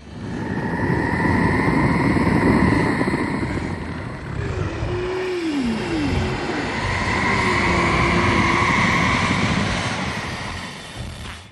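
Kaiju monster sound effect: a loud low rumble carrying two long, high-pitched held cries about five seconds apart, with a few short falling tones between them. It fades in at the start and dies away near the end.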